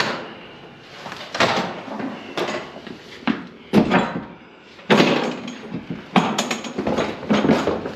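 A series of irregular knocks and bangs, about a dozen, some in quick clusters, each with a short ringing tail.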